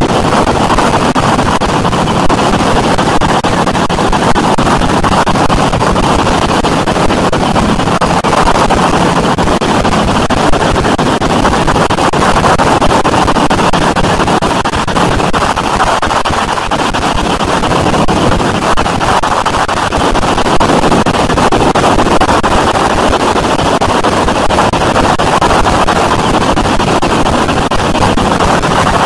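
Harsh noise music: a loud, dense wall of distorted noise that runs on unbroken, with a faint steady low drone underneath.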